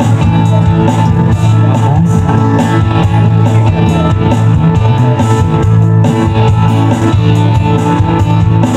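Live band playing an instrumental passage: acoustic and electric guitars strummed and picked over a steady beat.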